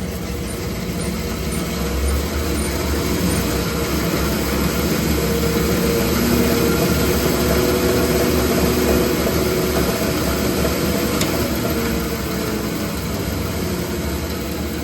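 DoAll 2013-U 20-inch vertical band saw running in high gear, a steady mechanical whir with a low hum that swells slightly through the middle.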